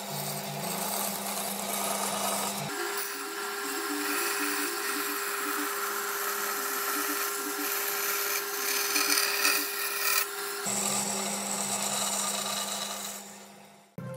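Band saw running and cutting a curve through a wooden block: a steady motor hum under the hiss of the blade through the wood. The hum switches to a higher tone about three seconds in, drops back about eleven seconds in, and fades out near the end.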